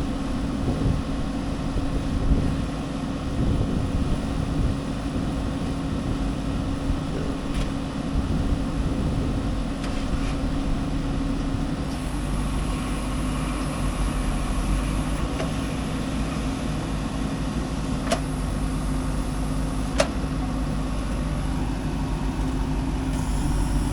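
Heavy-machinery diesel engine running steadily; its note shifts about halfway through, and a couple of sharp clicks or knocks come near the end.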